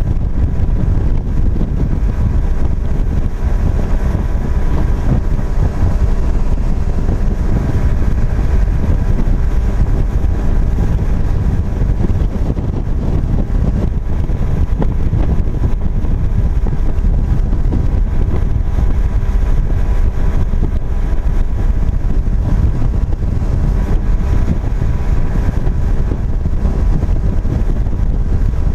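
Fishing boat underway across open water: its outboard motor runs steadily under way, mixed with wind buffeting the microphone.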